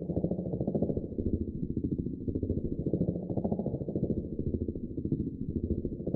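A machine running with a fast, even, low chugging pulse, steady throughout.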